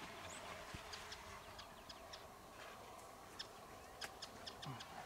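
Small birds chirping faintly in short, scattered high notes, over a soft open-air hush.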